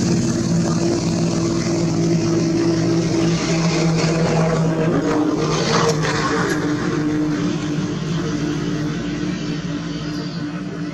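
A steady low motor hum at an unchanging pitch, easing off slightly near the end.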